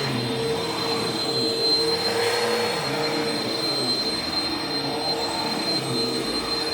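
Vacuum cleaner running steadily with a constant high whine, its lower hum rising and falling.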